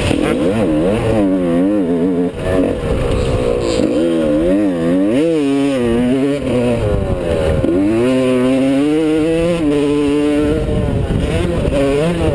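Yamaha YZ125 two-stroke single-cylinder dirt bike engine under load on a motocross track, heard from a camera mounted on the bike. Its pitch climbs through the gears, drops sharply when the throttle is rolled off or a gear is changed, and climbs again several times.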